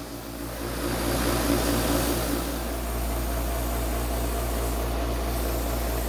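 Craftsman wood lathe running steadily with a constant low hum while sandpaper is held against the spinning bloodwood pen blank. A sanding hiss grows louder about a second in. This is the hand-sanding stage after the blank has been turned down with tools.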